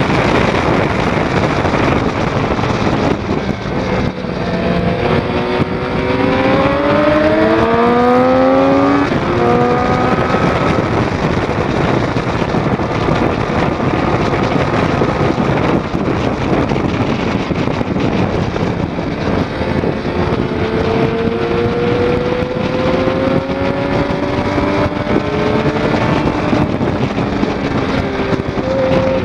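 Triumph Daytona 675's inline-three engine pulling hard on track under heavy wind rush from riding at speed. The engine note climbs steadily from about four seconds in, breaks off around nine seconds, and climbs again in the second half.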